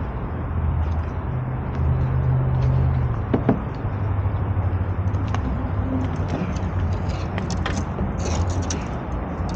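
Boat motor running at low speed, its low hum shifting in pitch a few times as the boat is manoeuvred, over wind and water noise. A couple of sharp knocks come about three and a half seconds in.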